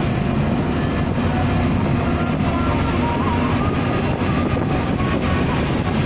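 Steady road and engine noise inside a car's cabin while cruising at highway speed: a continuous low rumble of tyres and wind with no sudden events.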